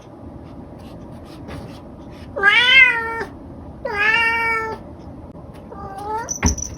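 Domestic cat meowing three times: two long meows, each rising and then falling in pitch, then a shorter, softer one, over a steady background hiss. A sharp click comes near the end.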